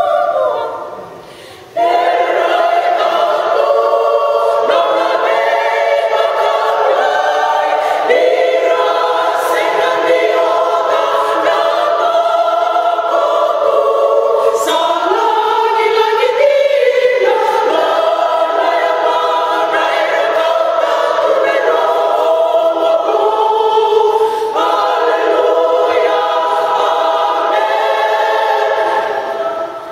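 Women's choir singing in harmony, unaccompanied, with a short break between phrases about a second in before the voices come back together.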